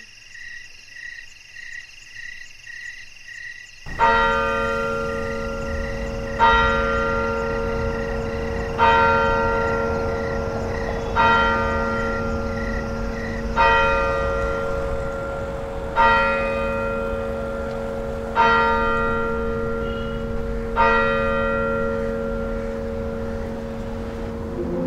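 Frogs croaking in an even pulsing rhythm. About four seconds in, a church bell starts tolling: eight slow strokes about two and a half seconds apart, each ringing on and fading.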